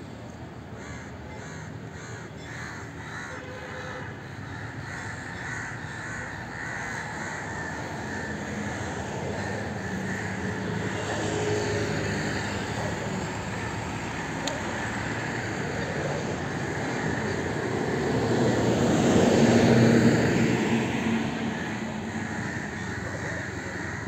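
Crows cawing repeatedly over a steady background of traffic noise, which swells to a peak about three-quarters of the way through and then fades, as a vehicle passes.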